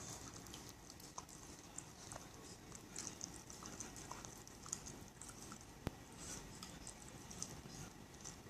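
Shiba Inu eating sherbet: faint, irregular chewing and smacking sounds, with one sharp click about six seconds in.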